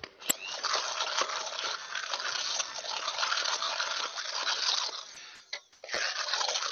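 Hand-held stick blender whirring in a saucepan, pureeing cooked strawberry and rhubarb until smooth. It runs for about five seconds, stops for half a second, then starts again near the end.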